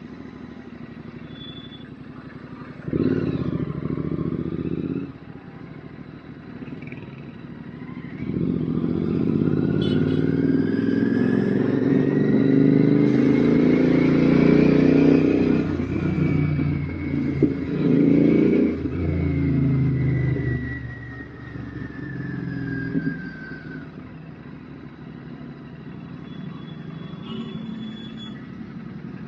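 Royal Enfield GT650 parallel-twin engine through an aftermarket RRP exhaust, on the move. It runs low, gives a short burst of throttle about three seconds in, then from about eight seconds pulls hard in a long stretch that changes pitch in steps. It eases off a little after twenty seconds back to a low steady run.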